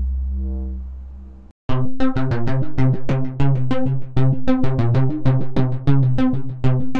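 Sub Boom Bass software synthesizer presets playing. First a deep held bass note fades away and stops about a second and a half in. Then a sequenced preset starts a fast, repeating pattern of short bass notes.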